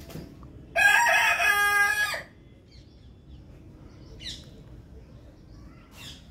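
Rooster crowing once: a loud cock-a-doodle-doo lasting about a second and a half, starting just under a second in. Two faint, short, high chirps follow, a couple of seconds apart.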